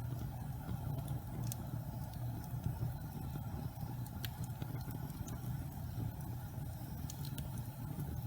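Wood fire burning in a fireplace: a steady low rumble of the flames with scattered sharp crackles and pops from the burning logs, a few at irregular intervals.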